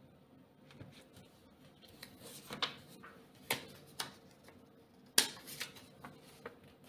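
Paper banknotes being handled: a run of sharp crinkles and taps, the loudest about five seconds in.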